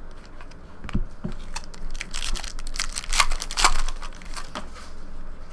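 Crinkling and tearing of a trading-card pack's plastic foil wrapper, a run of irregular crackles that is busiest in the middle.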